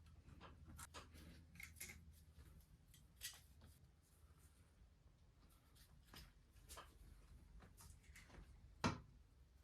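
Near silence broken by faint, scattered light clicks and taps of small parts being handled, with one sharper click about nine seconds in.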